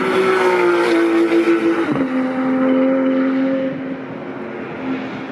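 Race car engine at full throttle passing on the circuit. Its note sinks for about two seconds, drops sharply at a gear change, holds, then fades as the car goes away.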